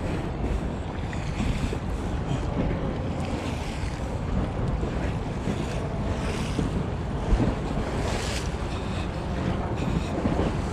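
Wind rumbling on the microphone, with waves from Lake Michigan washing onto the beach now and then.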